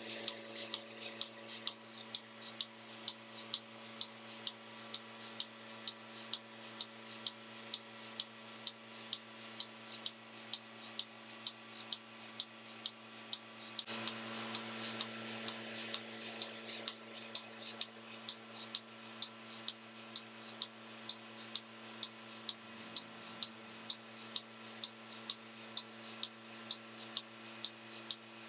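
Milking machine running on a dairy cow: a steady motor hum with a regular pulsing tick about twice a second and a hiss of air and milk flow that grows louder about halfway through.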